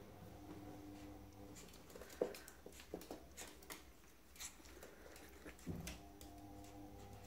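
A chihuahua puppy moving about: faint scattered taps and rustles, over a low steady hum.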